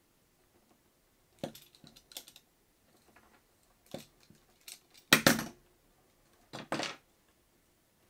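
Scattered clicks and small metal rattles of hand tools: a coax cable stripper worked on solar cable to strip its insulation, then tools being put down and taken up. The loudest clatter comes about five seconds in, with another just under seven seconds.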